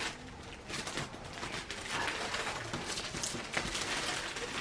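Irregular rustling and light clicks of hands handling bouquet materials, a steady patter of small crinkly sounds.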